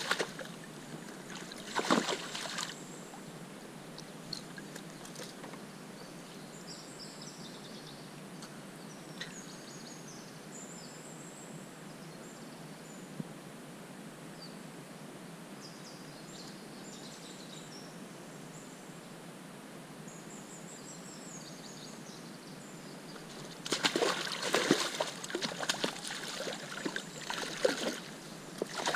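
A trout thrashing in a landing net and splashing water: a short burst at the start and a longer run of splashes near the end. In between, the steady rush of the flowing river.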